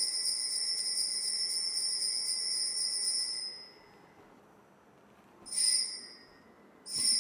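Altar bells (Sanctus bells) ringing steadily for the elevation of the chalice, stopping about three and a half seconds in. Two short rings follow about a second and a half apart near the end, at the priest's genuflection.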